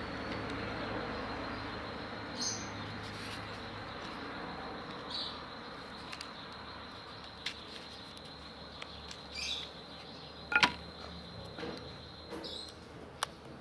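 A few small sharp metal clicks and taps as a screwdriver works on a chainsaw carburetor's metal body during disassembly, the loudest a double click about ten and a half seconds in. Faint high chirps come now and then in the background.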